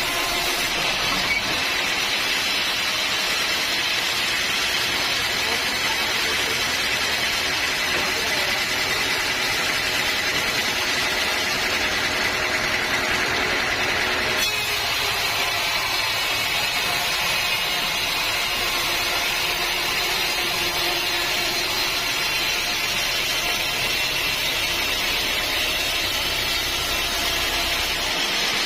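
Sawmill running and cutting through an old teak log: a steady, loud machine noise with a high whine. The sound changes abruptly about halfway through.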